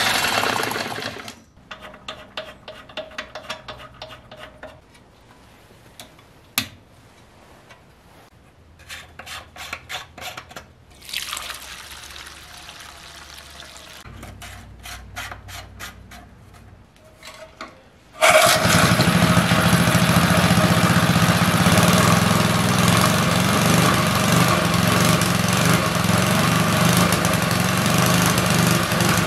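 Short workshop clicks and a pour of fuel through a funnel, then about two-thirds of the way in a freshly rebuilt 1968 Briggs & Stratton 2 hp horizontal-shaft single-cylinder L-head engine comes in suddenly and runs loud and steady.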